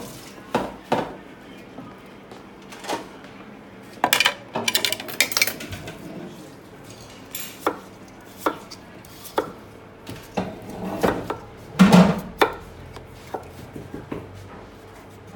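Kitchen knife slicing peeled potatoes on a wooden cutting board: irregular knocks of the blade against the board, a quick flurry of them about four seconds in and a louder clunk about twelve seconds in.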